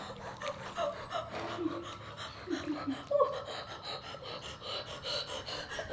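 Pool water splashing and lapping softly around a baby and adult, with short gasps and breathy little voice sounds scattered through.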